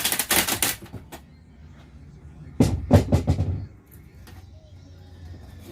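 Two short bursts of rapid knocking and cracking, one right at the start and one about two and a half seconds in, as an RV's ceiling panels are struck and broken out.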